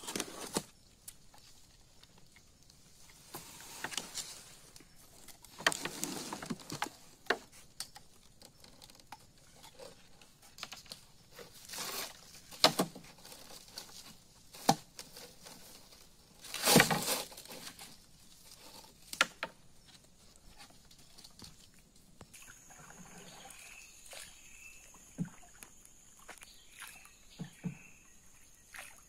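Irregular knocks, taps and rustles of a caught giant snakehead, fishing line and mesh landing net being handled in a wooden boat. The loudest burst comes about halfway through. In the last quarter a steady high buzz sets in, with short chirps repeating every second or so.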